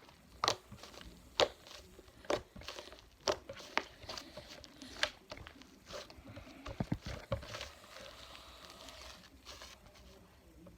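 Fluffy slime being squished and stretched by hand, its trapped air bubbles giving sharp pops about once a second, with a quick run of pops about seven seconds in and soft crinkling between.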